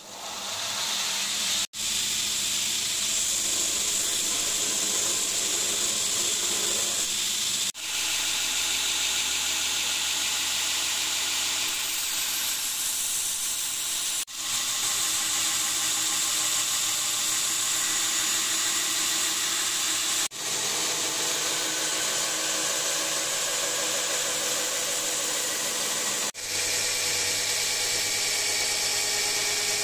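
Belt grinder switched on, then grinding a hardened steel katana blade on its abrasive belt: a steady grinding noise over the motor's hum, with brief dips about every six seconds.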